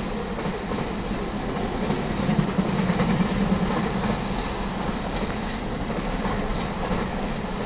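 Freight train of autorack cars rolling past, steel wheels rumbling and clattering on the rails, a little louder about two to three seconds in.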